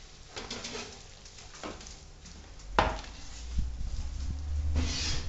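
Metal roasting tray handled out of the oven and set down on a granite countertop: a few light knocks, then a louder clunk about three seconds in, followed by a low rumble.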